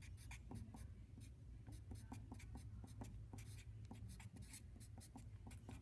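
Felt-tip marker writing on paper: faint, quick scratching strokes and light taps as an equation is written out.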